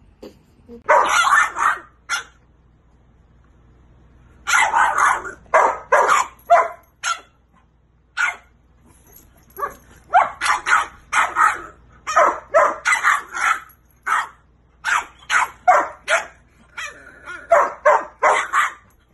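French bulldog puppy barking in short high yaps, in several quick runs with brief pauses between them.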